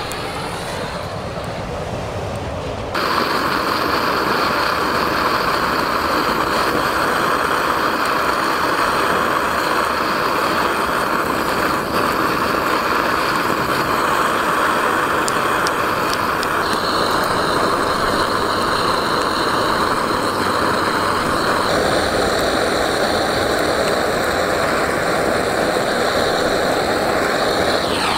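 Handheld gas blowtorch flame hissing steadily, switching on abruptly about three seconds in and holding at full strength, with slight shifts in tone twice later on.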